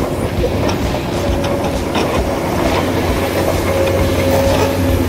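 Small electric motors of a radio-controlled toy excavator whining at shifting pitches, with rattling gear clatter as it digs.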